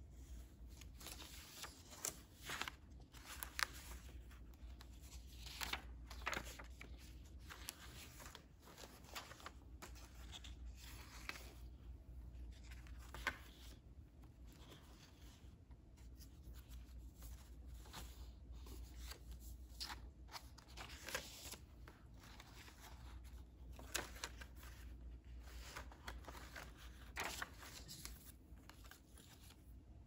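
Faint rustling and flicking of paper and card as the pages of a handmade junk journal are turned and handled, with a few sharper crisp page snaps scattered through.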